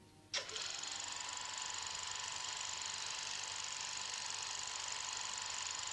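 Steady hiss with a faint constant whine, starting abruptly about a third of a second in: the noise of an old archival film soundtrack.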